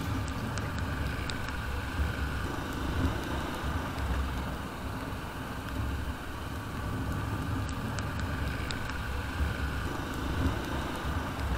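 Royal Enfield Bullet 350's single-cylinder engine running steadily as the motorcycle rides along a wet road, with road and tyre noise around it.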